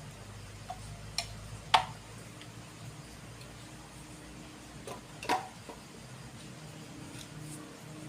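A few sharp clicks and knocks of small hard parts, the loudest about two seconds in and another pair about five seconds in, over a low steady hum.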